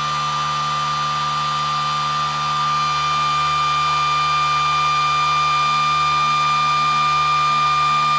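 Rebuilt pulse motor spinning fast with no load, a steady high whine made of several pure tones as its coil pulses at about 600 hertz, driven at about three-quarter throttle on the trigger coil from one input battery bank. It grows slightly louder over the seconds.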